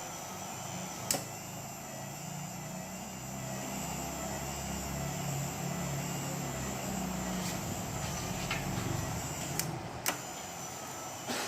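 A small electric motor humming steadily, louder through the middle, with a few sharp clicks about a second in and again near the end.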